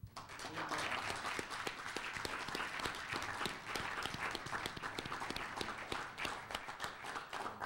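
Applause from a room of people clapping, starting suddenly and holding at a steady level of many overlapping claps.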